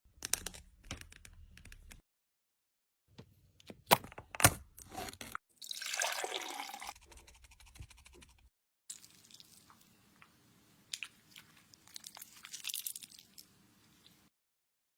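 Fluffy slime being squished and pulled in short takes cut apart by dead silence: sticky crackles, pops and sharp clicks, with a louder spell of crackling noise about six seconds in.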